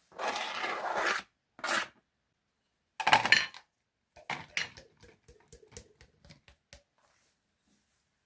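Kitchen preparation sounds: a few rustling, scraping bursts, then a run of light clinks and taps of utensils against dishes for about three seconds.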